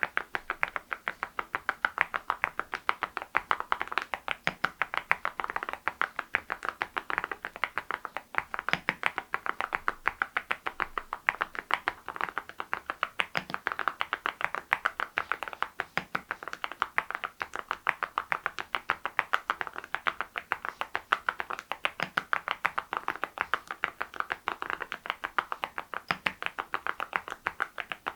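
Continuous typing on an Adelie mechanical keyboard fitted with Cerakey ceramic keycaps: a steady stream of sharp clacking keystrokes, several a second.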